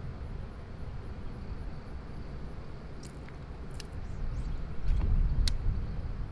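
Wind buffeting the microphone as a steady low rumble, gusting stronger about five seconds in, with a few sharp clicks and a couple of faint high chirps over it.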